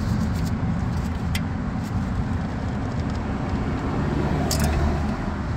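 Steady low rumble of a motor vehicle, with a few faint clicks from a wrench working a brake caliper bolt.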